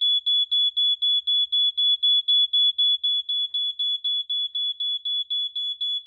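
BRK 86RAC smoke alarm sounding: a high single tone beeping rapidly and evenly, about four beeps a second, without a break. It has been set off through its interconnect line by an old bimetal thermostat closing its contacts as it warms.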